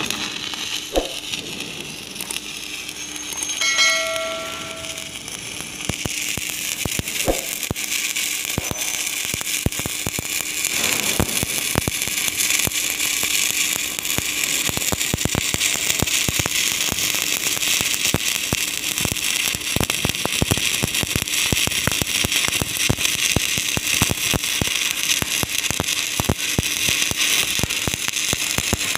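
Stick (shielded metal arc) welding with a 3.2 mm E7018 low-hydrogen electrode (LB-52) on a steel tank flange: the arc keeps up a steady dense crackle, with a faint hum underneath. About four seconds in there is a brief ringing tone with several pitches.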